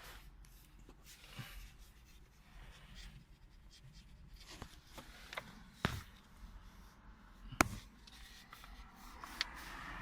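Faint rubbing and handling noises with a few sharp clicks, the loudest about three quarters of the way through and another a little before it.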